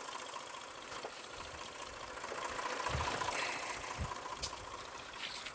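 Old forklift's engine running steadily as it holds and tilts a log forward, with a couple of dull thumps about three and four seconds in.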